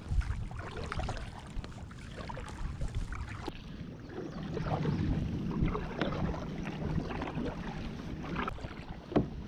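Double-bladed kayak paddle stroking through the water, with splashes and drips off the blades, and a couple of light knocks along the way.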